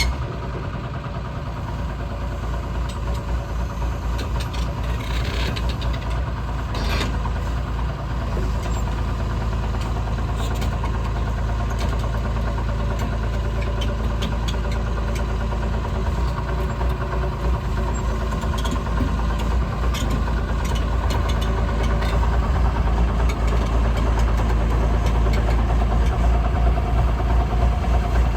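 Diesel engine of a Liebherr 932 excavator idling steadily, with a few brief knocks about five to seven seconds in and the engine sound growing somewhat louder near the end.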